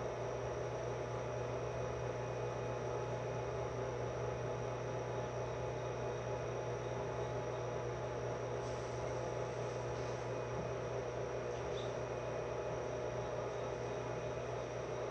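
Steady electrical hum inside a JR West 105 series electric train standing at a platform, its traction motors silent while the train is stopped. The hum holds one level throughout, with a few faint ticks about two-thirds of the way through.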